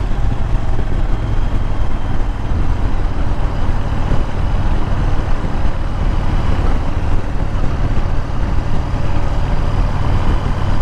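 Motorcycle engine running steadily while riding, with an even rush of wind and road noise over it.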